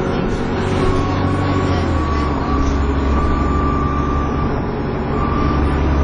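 Dennis Trident 2 double-decker bus under way, heard from inside the passenger saloon: a steady low engine drone with a thin high whine over it, the whine bus enthusiasts call "hoovering". The whine drops out briefly a few times.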